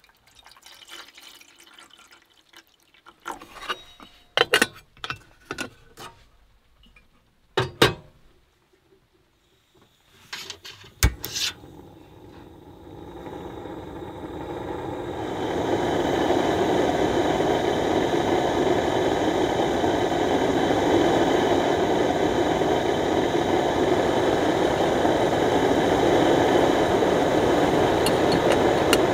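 Water poured into an aluminium kettle, then a series of clicks and knocks as a butane canister stove is set up. About eleven seconds in a sharp click, and the burner lights: a steady rushing noise that builds over a few seconds and then holds.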